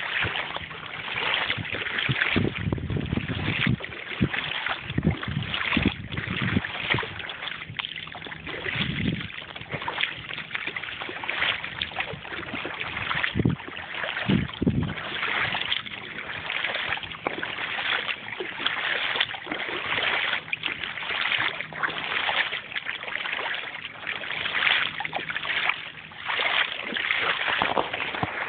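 Water rushing and splashing along the hull of a flat-bottomed boat under way, with wind gusting against the phone's microphone at intervals and a faint steady low hum underneath.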